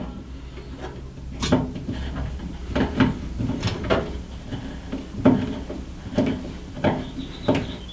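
Irregular clicks and knocks of PC case parts being handled and fitted, about ten over several seconds.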